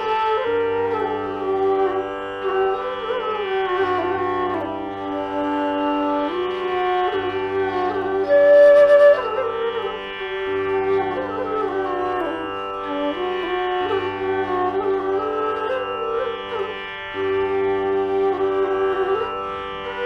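A 25-inch G-natural base bamboo bansuri flute plays a slow classical melody, sliding between notes, over a steady drone. About halfway it rises to a loud held high note with audible breath.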